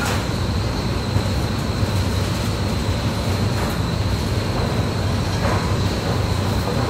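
Steady low machinery drone with a thin high whine on top, the constant running noise of an enclosed pig barn.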